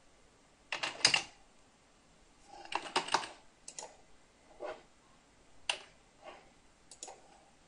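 Computer keyboard keys tapped by hand: a quick run of keystrokes about a second in and another about three seconds in, then single taps every second or so.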